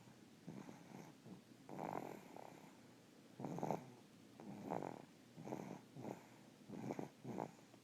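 Snoring: short raspy breaths coming about once a second, some in quick pairs.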